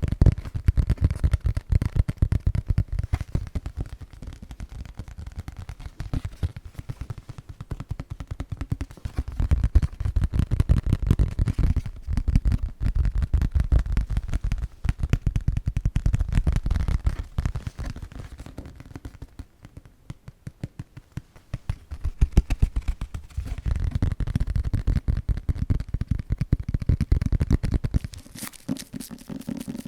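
Rapid tapping close to the microphone, many taps a second, coming in waves with a quieter lull about two-thirds of the way through.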